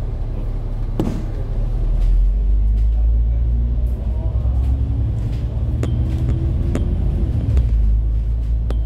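Low, steady rumble of a bus's engine and road noise heard from inside the moving bus, growing louder about two seconds in, with a few sharp clicks or rattles.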